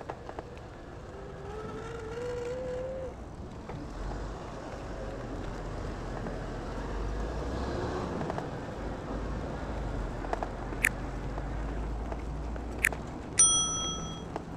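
Outdoor ambience while riding a bicycle: a steady rush with low wind rumble on the microphone, two sharp clicks, and a short ringing ding near the end.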